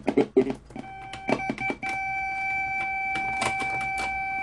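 Circuit-bent talking alphabet desk toy giving a steady electronic tone through its speaker in place of its voice. The tone starts about a second in, breaks off briefly twice, then holds at one pitch, with clicks of its keys being pressed.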